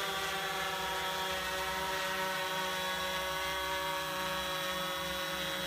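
Quadcopter drone's electric motors and propellers whining steadily as it hovers, a many-toned buzz over a low rumble.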